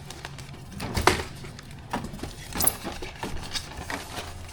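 Light knocks and clicks of small model-plane parts being handled and fitted by hand, with a louder knock about a second in and several smaller clicks after it.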